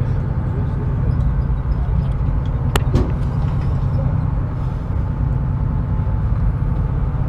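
Steady low rumble of a fishing boat's engine running, with a single sharp click a little under three seconds in.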